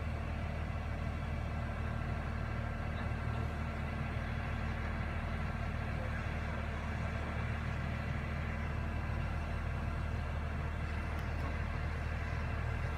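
Crane engine running steadily while it holds the windmill's cap on its cables: a constant low drone.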